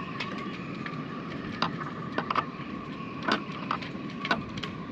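Hand tools clicking and knocking at irregular moments on seized windlass mounting bolts that will not come undone, over a faint steady whine.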